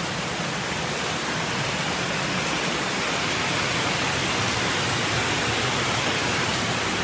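Torrential rain pouring down: a steady, even rush of heavy rainfall and running water.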